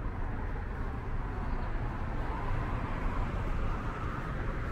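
Street traffic noise: a steady low rumble, with a passing vehicle's tyre hiss swelling in the middle and fading near the end.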